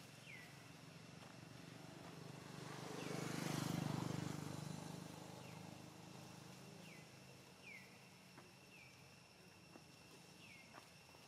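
A vehicle passing by, swelling and fading over about three seconds near the middle. Behind it, a steady high insect drone and short high chirps that drop in pitch recur every second or so.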